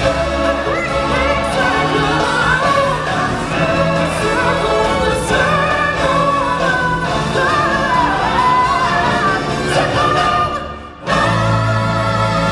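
Live stage-show music with a choir singing over a full backing track. Near the end the music briefly drops away, then starts again with a heavier bass.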